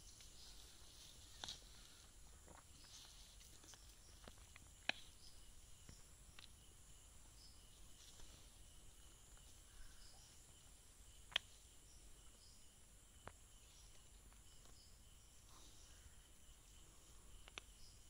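Very quiet background of steady insect chirring, broken by a few sharp clicks, the loudest about 5 and 11 seconds in, as mushrooms are worked out of the soil with a small knife.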